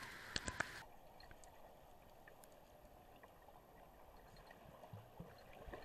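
Camera dunked in pool water: a splash with a few sharp clicks in the first second, then a faint, muffled underwater hush with the higher sounds cut off, until the surrounding noise starts to come back near the end.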